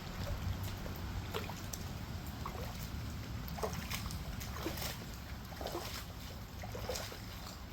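Shallow water lapping and splashing in short, irregular sloshes over a steady low rumble.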